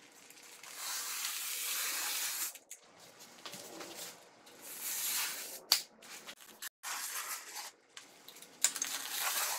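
Utility knife scoring the fiberglass facing of DensArmor Plus gypsum board along a metal T-square: a few separate long scraping strokes, the longest about a second in.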